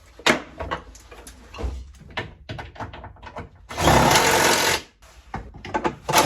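Cordless drill driving a small screw: a few knocks and clicks, then about a second of the drill running under load, and another burst starting near the end.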